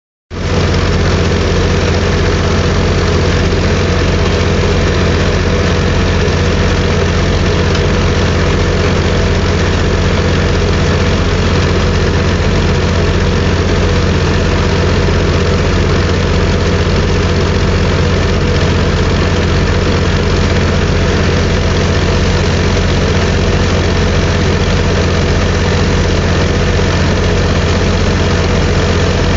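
Coring drill rig's engine running steadily with an even, unchanging drone, while the rig pumps water through the core barrel to push out a stuck core liner.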